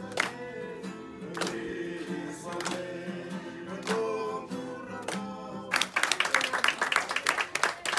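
Live group singing with acoustic guitar, with listeners clapping along on the beat. About six seconds in, the song stops and loud applause breaks out.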